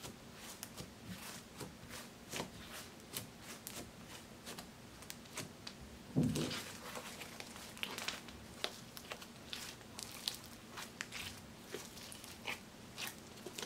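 Hands kneading, pressing and stretching glossy black and metallic gray slime, giving a rapid string of small sticky clicks and crackles. About six seconds in there is one heavier, deeper thud as the slime is pressed down.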